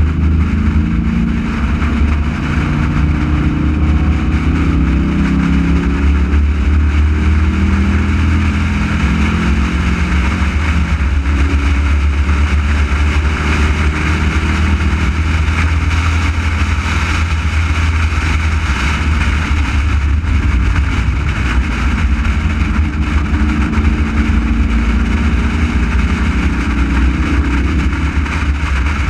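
Race car engine heard onboard at track speed, with a steady rush of wind and road noise. The engine note rises and falls with throttle and gear changes in the first ten seconds and again near the end.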